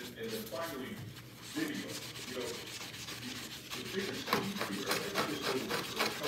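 A white foam sponge scrubbing back and forth across a wet gas stovetop around a burner, a steady scratchy rubbing.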